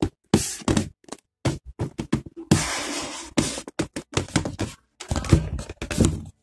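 A plastic blister tray being slid out of a cardboard toy box, making irregular scrapes, rustles and small knocks, with a longer scrape about two and a half seconds in.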